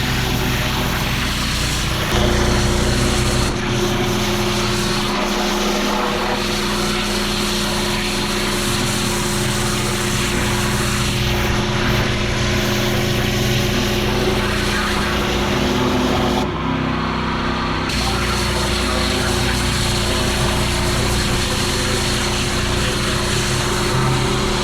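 Engine-driven pressure washer running steadily, with the hiss of high-pressure water spraying on paving. The engine note and spray change briefly about sixteen seconds in.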